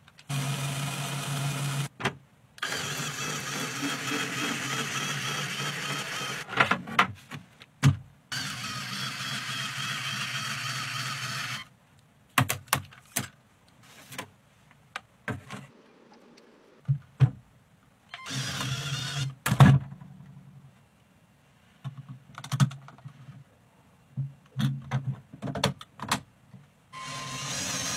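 Small LEGO electric motor whirring as it drives the plastic gears and spins the car's wheels, running in stretches of a few seconds with stops between. In the gaps come sharp clicks and knocks of plastic LEGO parts being handled.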